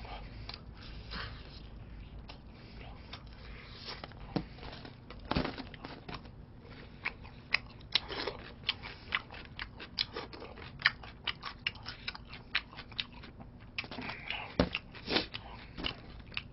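Fried chicken being bitten and chewed: a run of sharp, irregular crunches, coming thick and fast from about seven seconds in.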